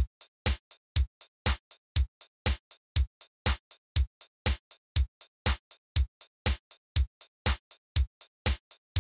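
Background electronic music reduced to a bare drum-machine beat: a strong kick about twice a second with lighter hits in between.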